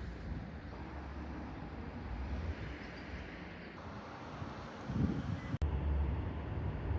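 Outdoor background ambience: a steady low rumble with a soft hiss, swelling louder about five seconds in, with a brief dropout just after.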